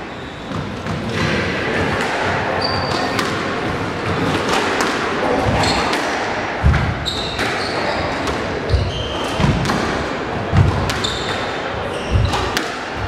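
Squash rally in a hall: the ball cracks off rackets and smacks the walls about once a second, with heavier thuds in the second half, while court shoes squeak briefly on the wooden floor.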